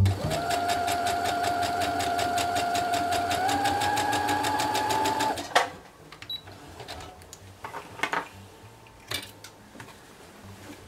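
Brother computerised sewing machine stitching a fabric border strip onto a quilt top: a steady motor whine with rapid, even needle strokes, speeding up slightly about three and a half seconds in. It stops with a click about five and a half seconds in, followed by faint fabric handling and small clicks as the piece is pulled out from under the presser foot.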